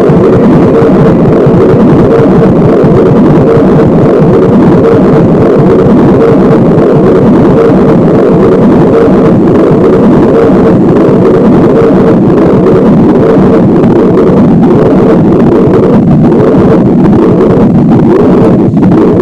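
Loud, dense distorted drone of live experimental electronic music played on modular analogue and circuit-bent equipment, with a fast-pulsing mid-pitched tone that fades about three-quarters of the way through.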